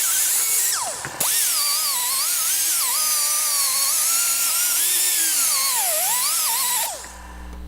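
Reversible die grinder whining as it grinds the cutting edges of steel hedge-shear blades, its pitch wavering and dipping as the load changes, then stopping about seven seconds in. A low steady hum remains after it stops.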